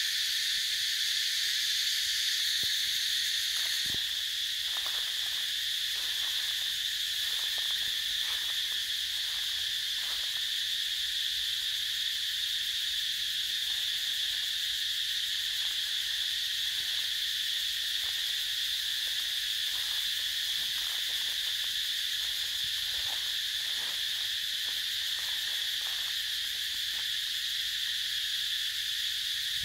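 Dense insect chorus: a steady, high-pitched drone that shifts slightly in tone about four seconds in.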